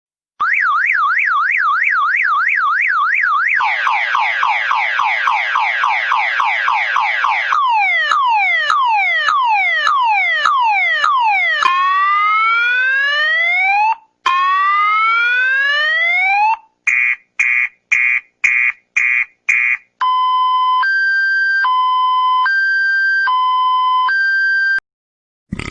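Electronic car-alarm-style siren sound effect cycling through its tones. It opens with a fast warble, then gives rapid rising sweeps, falling sweeps, two slow rising whoops, a run of short beeps about two a second, and finally a two-note high-low alternation.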